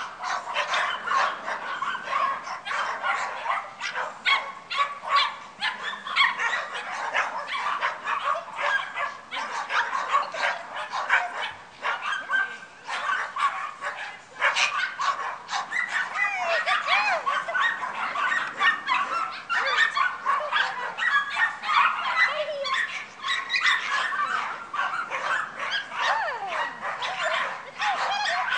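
Many dogs barking and yipping without pause, the barks overlapping one another.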